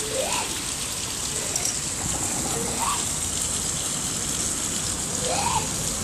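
Steady splashing of water from a tiered park fountain. A few faint, short, rising calls sound over it.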